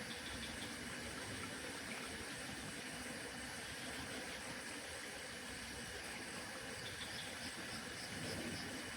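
Steady outdoor evening ambience in the mountains: an even hiss of background noise, with short runs of faint, high, evenly repeated chirps just after the start and again near the end.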